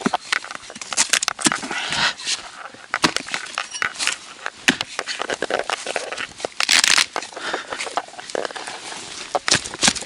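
Rotten wood being chopped and torn apart with a hatchet: an irregular run of cracks, crunches and tearing of soft, punky wood and bark, with a louder rasping burst about seven seconds in.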